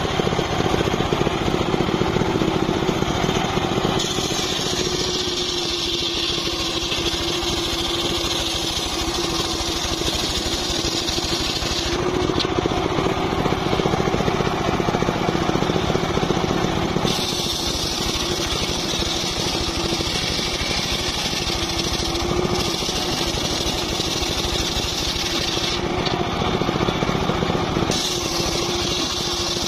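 Homemade table circular saw running steadily, its spinning blade ripping lengthwise through teak logs. A steady hum runs under a harsh cutting hiss that changes abruptly several times.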